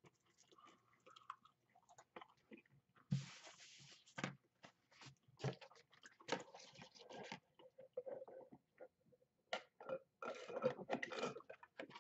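Faint, scattered clicks and mouth sounds of someone eating and drinking, with sips drawn through a straw from a paper cup near the end.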